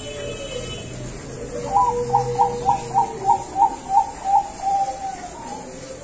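Perkutut Bangkok (zebra dove) singing its cooing song: a run of about ten quick, clipped notes in under three seconds, starting a little under two seconds in and ending in one longer, drawn-out note.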